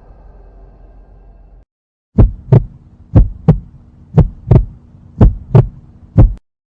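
Heartbeat sound effect: low double thumps (lub-dub), about one beat a second, five beats over a faint steady hum. Before it, the fading tail of another sound cuts off.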